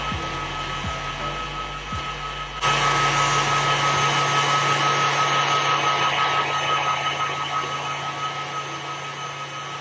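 Electric stand mixer running at speed, its whisk attachment beating eggs and sugar in a steel bowl: a steady motor whir with a thin whine above it. It steps up abruptly, louder and brighter, about two and a half seconds in.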